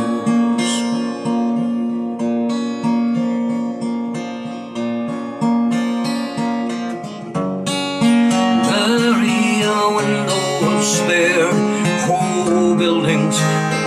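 Acoustic guitar strummed and picked steadily in a slow ballad rhythm, played through an amp set with delay and reverb. About halfway through, the playing fills out and a man's singing voice comes in over it.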